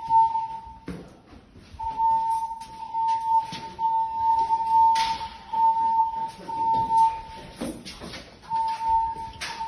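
Fire alarm voice-evacuation speaker sounding its alert tone, a single steady high tone pulsing on and off. It is silent for about the first two seconds and then pulses through the rest.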